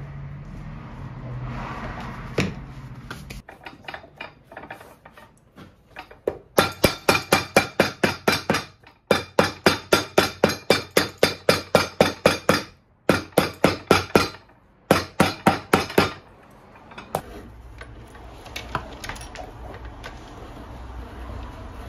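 Cobbler's hammer tapping a new Vibram 430 rubber lug sole onto a boot: quick, even blows about three a second, in several runs with short breaks. A low steady machine hum comes in near the end.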